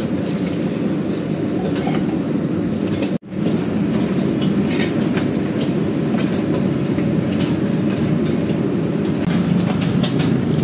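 Gas burner running steadily under a large wok of boiling pork gravy, a low rumbling noise, with a few faint light clicks. The sound drops out for an instant about three seconds in.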